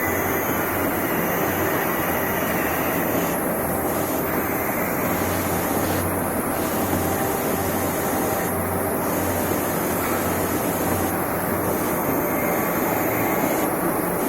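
Briquette-making machine running steadily with a low hum, its sound changing in a regular cycle about every two and a half seconds.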